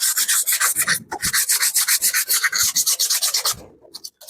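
Hand sanding a rusted steel car body panel with sandpaper: quick, even back-and-forth scraping strokes that pause near the end.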